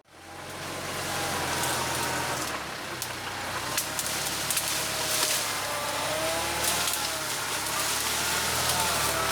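TYM tractor's diesel engine running steadily, with scattered sharp clicks and cracks over it.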